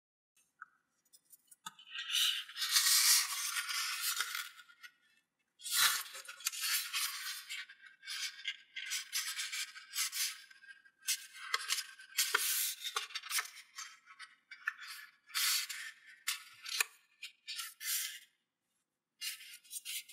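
A sheet of origami paper rustling and crinkling as it is handled, folded in half and its crease pressed flat by hand: irregular dry rustles that start and stop, with short silent pauses between them.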